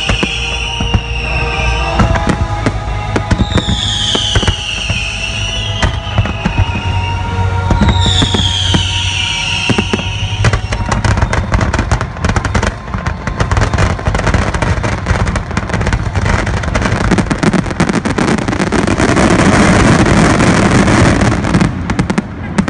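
Fireworks finale over the show's music: bursts at first, with three falling whistles in the first ten seconds, then from about ten seconds in a dense, rapid barrage of bangs and crackles that merges into a continuous loud rumble near the end.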